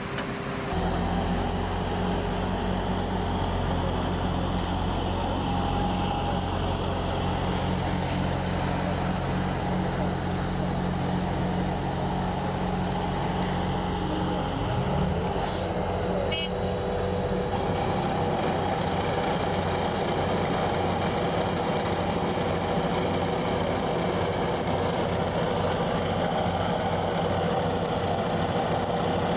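Engine of a heavy road-construction machine running steadily at a constant speed, with a few light clicks about halfway through.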